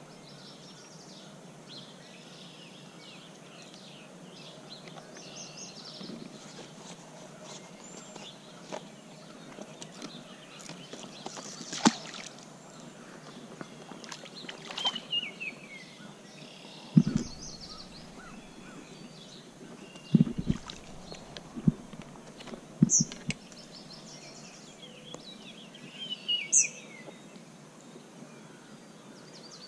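Steady rush of a small stream with birds singing, including falling call notes about halfway through and again near the end. Several sharp knocks and thumps stand out over it in the second half.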